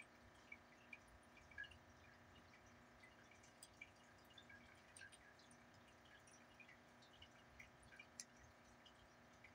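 Near silence: faint steady room hum with scattered faint ticks.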